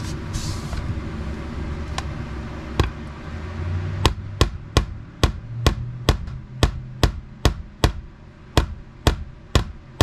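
Claw hammer driving a nail by hand into tongue-and-groove cedar planking: a few separate strikes, then quick steady taps, about three a second, from about four seconds in. The nail is not going in easily.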